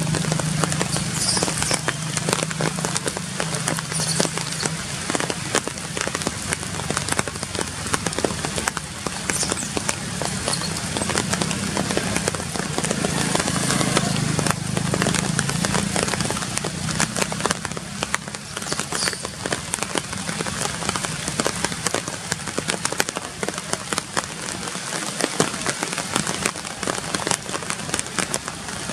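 Rain falling on forest leaves: a dense, continuous crackle of countless small drops. Underneath runs a low, steady drone that swells and fades.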